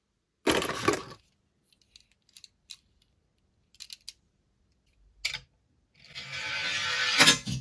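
Small mechanical handling noises of a toy car: a short rattle, a few scattered light clicks, then a rising rolling rush with sharp knocks near the end.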